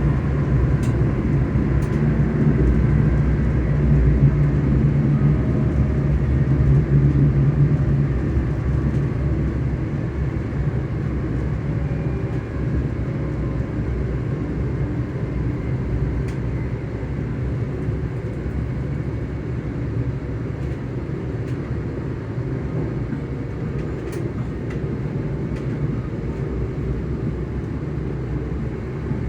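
ScotRail Class 385 electric multiple unit's traction motors humming under steady rail running noise, heard from on board. The sound is louder for the first eight seconds or so, then eases a little and holds steady.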